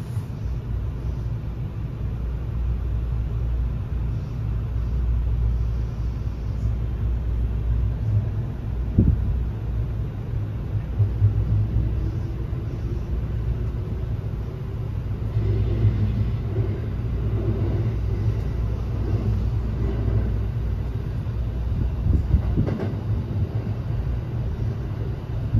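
Interior running noise of a JR West 321 series electric train, heard inside an unpowered trailer car: a steady low rumble of wheels on rail, with a couple of short knocks and a faint rising tone from about halfway through.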